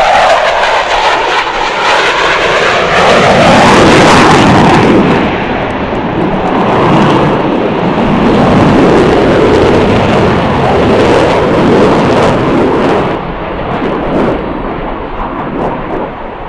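F-14 Tomcat's twin jet engines roaring in a fast, close pass, the pitch dropping as the jet goes by. The roar peaks a few seconds in and fades over the last few seconds as it pulls away.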